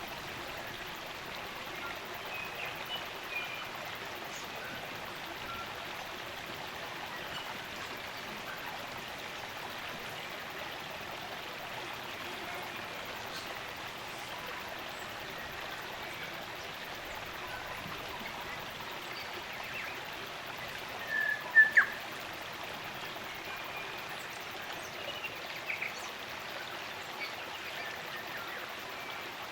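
Spring-fed stream running steadily, with scattered chirps of New Zealand native forest birds over it; about two-thirds of the way through one bird gives a louder call of two or three sharp notes.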